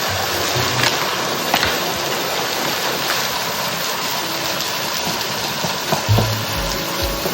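Ground beef, onions and pine nuts sizzling steadily in a frying pan, with a few light clicks from stirring. Quiet background music has low notes near the end.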